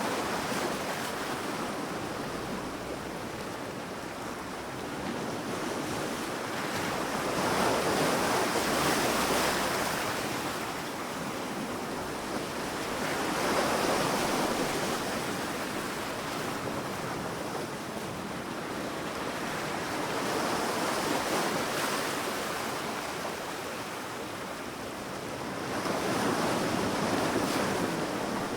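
Sea waves breaking and washing onto a beach, the surf swelling and falling back in slow surges about every five or six seconds.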